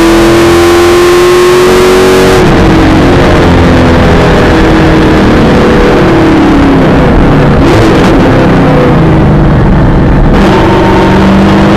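V8 supercar engine heard from inside the cockpit, very loud. The engine note climbs under acceleration, drops sharply about two and a half seconds in and falls away over the next few seconds as the car slows for a corner. Near the end it climbs again as the car accelerates out.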